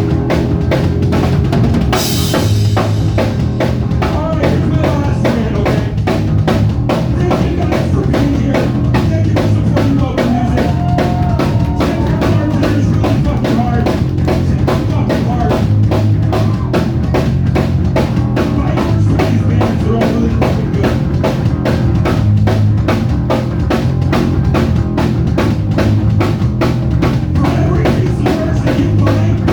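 Music driven by a drum kit playing a steady beat, with a cymbal crash about two seconds in.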